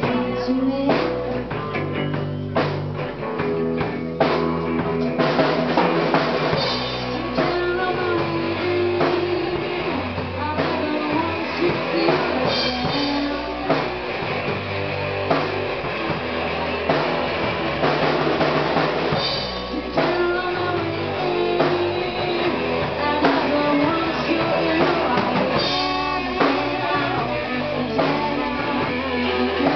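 Live rock band playing: electric guitars, bass guitar and drum kit, with a woman singing in places.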